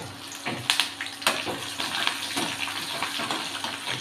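Curry leaves, garlic and dal sizzling in hot sesame oil in a kadai, a steady hiss with scattered sharp pops and crackles as the freshly added leaves splutter in the oil.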